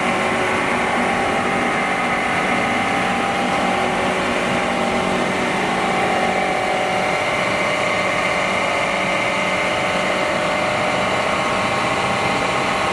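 Air compressor running steadily, a constant mechanical hum with several held tones and no change in level.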